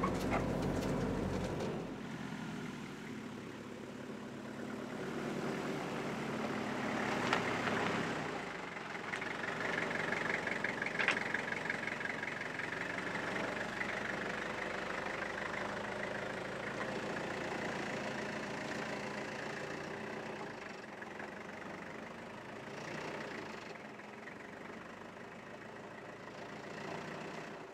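A Toyota Dyna Urban Supporter delivery van's engine running steadily, its note shifting about two seconds in and again around eight seconds in.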